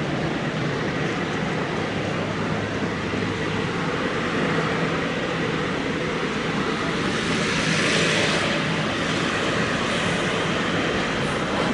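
Heavy vehicle running steadily with a continuous rumble, swelling louder with more hiss about seven to eight seconds in.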